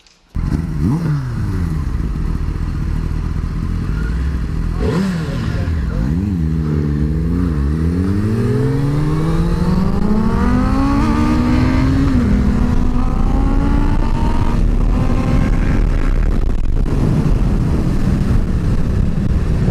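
Sport motorcycle engine accelerating hard, its pitch climbing and dropping several times through gear changes, then a long steady climb that levels off, with wind rushing past.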